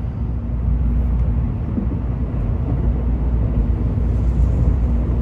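Steady low rumble of a Tokaido Shinkansen Kodama train running, heard inside the passenger cabin, with a faint steady hum above it; the train is running at reduced speed because of heavy snow.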